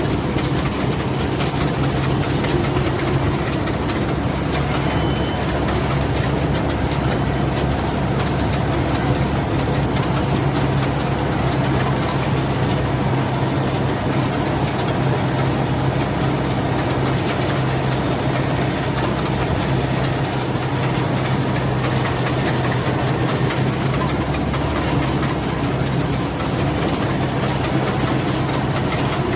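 Rice combine harvester running steadily: a constant low engine drone under an even hiss.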